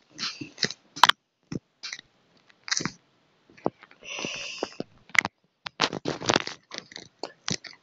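Irregular clicks, taps and short rustles of a hand handling a phone right at its microphone, with a brief scrape about four seconds in.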